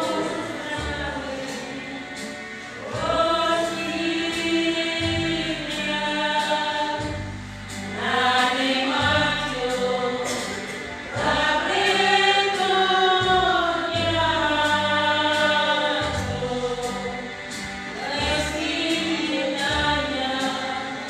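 Church choir singing a sacred song in the Kayu Batu language, several voices together in long phrases with short breaks between them.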